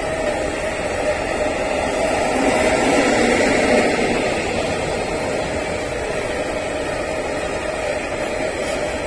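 Freight train of rail tank wagons rolling past: a steady rumble and hiss of steel wheels on the rails, swelling briefly about three seconds in.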